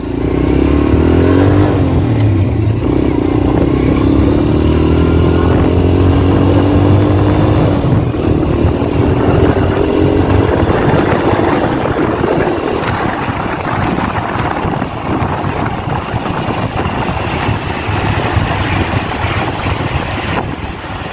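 Honda Astrea Prima motorcycle's single-cylinder four-stroke engine accelerating under load on a test ride, rising in pitch three times as it shifts up, then holding a steadier speed. It pulls smoothly without stuttering, the misfiring it was repaired for now gone.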